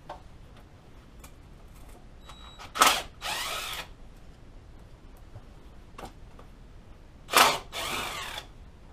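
Tool work on the inner primary mounting bolts of a Harley-Davidson Knucklehead, heard twice. Each time there is a sharp metallic hit, then under a second of noisy ratcheting or grinding.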